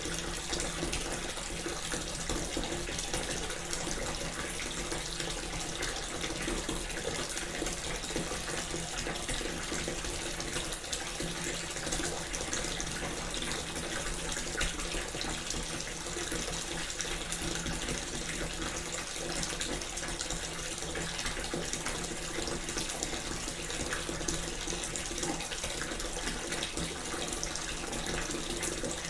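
Bath filling from a running tap: water pouring steadily into the tub, an even rushing splash that does not change.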